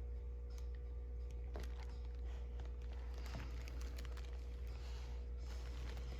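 Light handling of packaging: scattered soft rustles and small clicks, over a steady low electrical hum.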